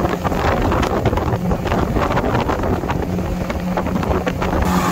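Mercury outboard with a water-jet unit running steadily at planing speed, its low engine drone under the rush of water along the hull, with heavy wind buffeting the microphone.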